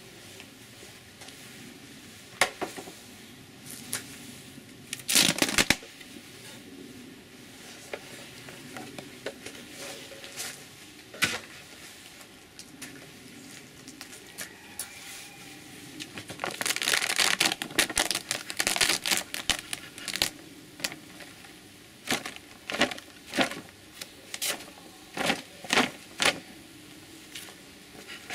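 Beehive being opened by hand: a plastic feeder and a clear plastic foil cover handled and peeled off the frames, crinkling, with scattered sharp clicks and scrapes of a hive tool on the wooden box. The crinkling is densest about halfway through, followed by a run of separate clicks.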